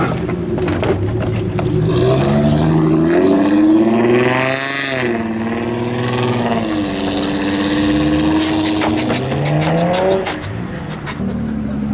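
A modified car's engine revving hard through its exhaust as the car drives off. The pitch climbs and falls several times and peaks sharply about four seconds in. Near the end comes a quick run of sharp crackles.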